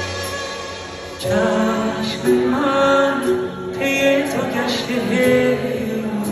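Live band playing a slow Persian pop song over a PA, and about a second in a male singer comes in singing.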